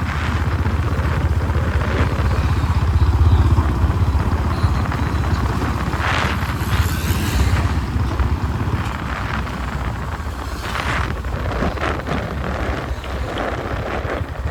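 Royal Enfield Bullet Standard 350's single-cylinder engine running through a short bottle-type silencer, giving a loud, steady low thump. There are two brief rushes of noise about six and eleven seconds in.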